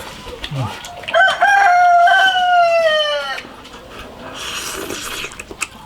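A rooster crowing once, a single drawn-out call of about two seconds that sags in pitch at the end, with faint clicks around it.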